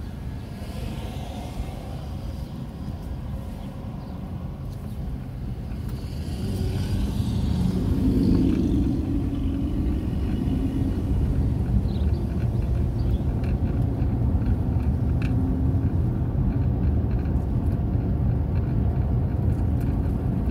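Car engine and tyre rumble heard from inside the cabin while driving, growing louder about six seconds in as the car picks up speed out of a roundabout onto a straight road, then holding steady.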